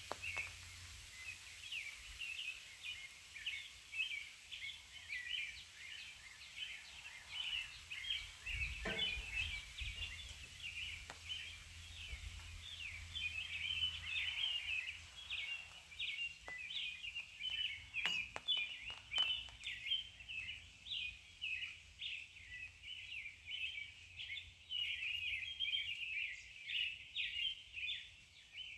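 Birds chirping steadily: a dense chorus of short, high calls, with a dull thump about a third of the way in and a few light clicks after the middle.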